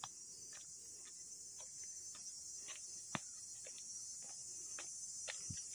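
A steady high-pitched insect chorus, with faint irregular taps of footsteps on a dirt trail.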